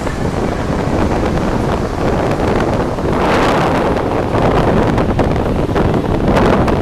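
Loud wind rushing over the microphone, a steady roar that swells about halfway through and again near the end.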